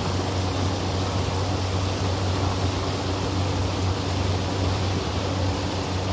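A boat's motor running steadily, heard as a constant low hum under a steady rushing noise of wind and water.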